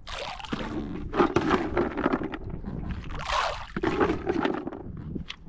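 Water sloshing and splashing as an inflatable rubber dinghy is rowed, the oar blades dipping and pulling in uneven strokes; at first a spoonful of sweetcorn patters onto the surface.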